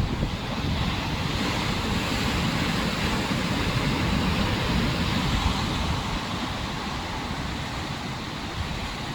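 Rough sea surf rushing and washing against the rocks, with wind buffeting the microphone in a low rumble. The rush swells a little midway and eases slightly in the last few seconds.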